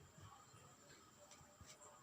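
Near silence: room tone with a steady faint high hiss and a few very faint small ticks.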